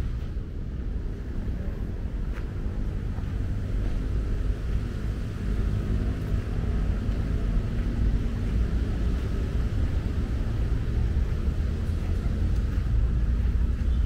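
Steady low outdoor rumble: wind buffeting the microphone, blended with traffic noise.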